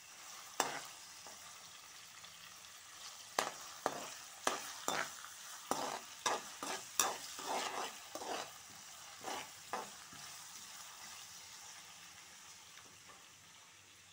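A tempering of seasoning seeds, onions, green chillies and curry leaves frying in hot oil in a kadai, with a steady sizzle. A steel spatula scrapes and knocks against the pan in a run of quick stirring strokes, which stop about ten seconds in, leaving the sizzle.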